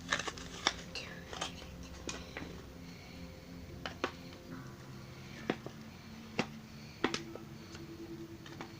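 Scattered light clicks and taps of plastic glue bottles being handled, about a dozen separate knocks spread over several seconds.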